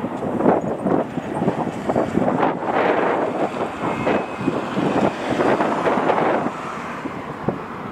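Wind buffeting the microphone: a loud, gusty rush of noise that rises and falls unevenly, with no siren tone present.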